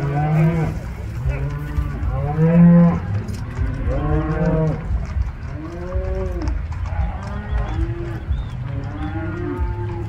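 A herd of cattle on a drive mooing, several cows calling one after another with some calls overlapping, over a steady low rumble.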